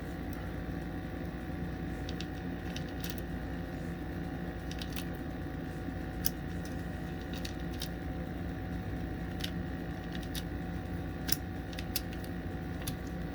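.22 LR cartridges being pressed by hand, one at a time, into a Taurus TX22 magazine with a Tandemkross extension: about a dozen small, sharp clicks at uneven intervals. A steady hum sits under them throughout.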